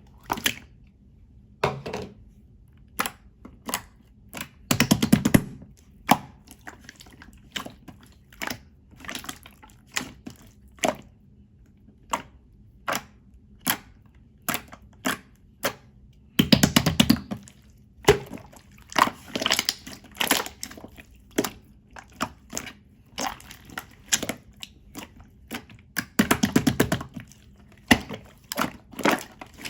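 Clear slime being pressed and stretched by hand, giving a steady run of sharp sticky pops and clicks, with three longer bursts of rapid crackling pops.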